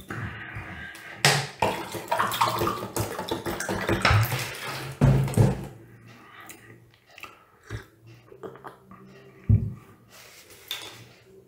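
A drink poured from a bottle into a glass, a gurgling rush that rises in pitch as the glass fills, lasting about six seconds. Then a few light clicks and one dull knock late on.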